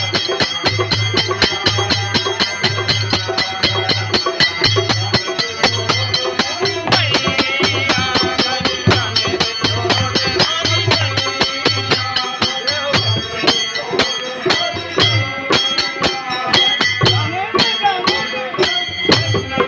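Live bhajan music: a harmonium sustaining chords over a dholak drum beating a steady rhythm, with fast high percussion on top. A man's singing voice comes in at times, about seven seconds in and again near the end.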